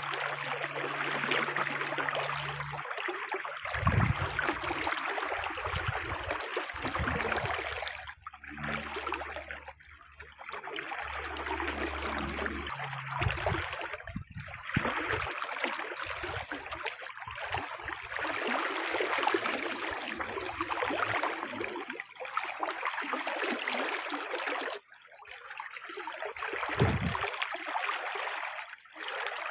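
Steady rush of running water, breaking off briefly a few times, with a couple of low thumps.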